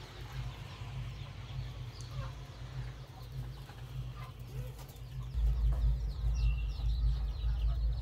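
Desi chickens, hens and roosters, clucking and calling softly, over a low rumble on the microphone that grows louder about five seconds in.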